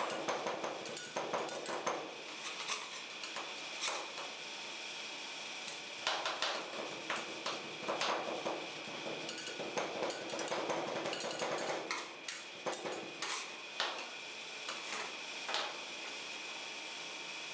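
Two metal spatulas chopping and scraping on a steel rolled-ice-cream cold plate: irregular sharp clicks and taps of the blades striking the metal, dying away near the end. A steady high tone runs underneath.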